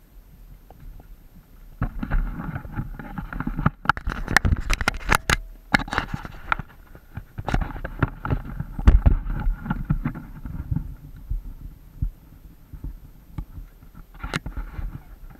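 A horse walking through a shallow river, hooves splashing and knocking irregularly with low thumps, busiest from about two seconds in to about twelve seconds in, with a last splash near the end.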